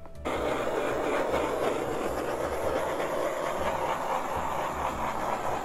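Handheld butane torch flame hissing steadily, lit just after the start, as it is swept over wet epoxy resin to pop surface bubbles.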